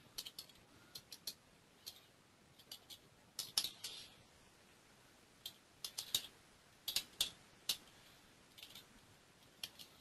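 Computer keyboard being typed on: quiet, irregular keystroke clicks in short clusters with pauses between them.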